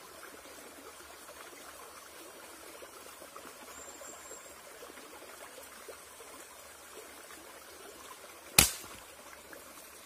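A single sharp air rifle shot about eight and a half seconds in, the loudest sound by far, with a short tail as it dies away. Before it, only a faint steady outdoor hiss.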